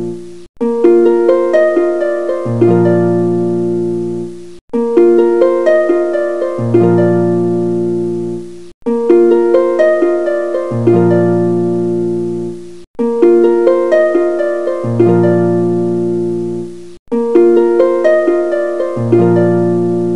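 Background music: a short instrumental loop of notes over a low bass note, repeating about every four seconds with a brief break between repeats.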